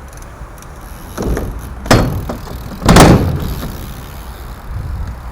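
BMX bike hitting the ground: three knocks and clatters, the loudest about three seconds in.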